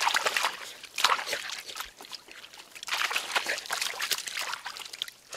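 Hands splashing and sloshing in shallow water while grabbing a frog, in short bursts near the start, about a second in, and a longer run a little past the middle.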